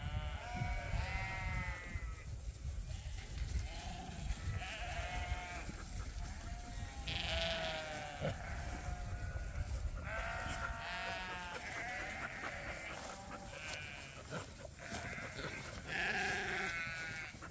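Lambs bleating, a string of wavering calls from several animals one after another, over a low rumble.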